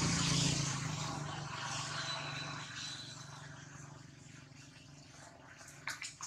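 A motor vehicle's engine hum that fades away over the first few seconds, leaving quiet outdoor background with a couple of short sharp clicks near the end.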